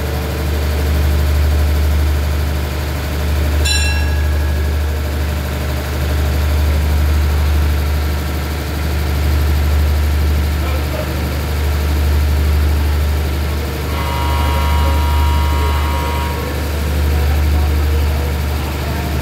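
Passenger train's diesel engines idling steadily at the platform, a loud constant low hum. A brief high chirp comes about four seconds in, and a held tone lasts a couple of seconds from about fourteen seconds in.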